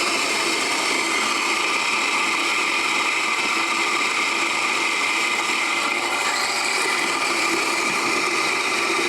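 Electric coffee grinder running steadily as it grinds coffee beans for espresso.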